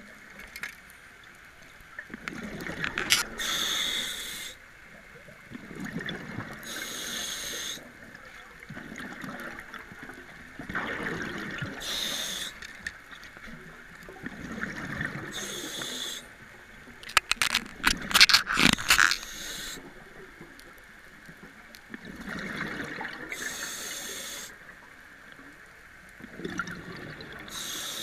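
Scuba diver breathing through a regulator underwater: each breath is a hissing inhale followed by a gurgling burst of exhaled bubbles, repeating every four to five seconds. About two-thirds of the way through comes a cluster of sharp clicks and rattles, the loudest part.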